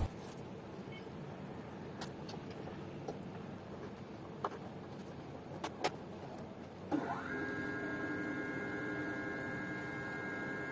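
A few faint clicks, then about two-thirds of the way in the NEMA 17 stepper motors of a GRBL-controlled pen plotter start driving the carriage at constant speed. They make a steady whine of several even tones that cuts off near the end.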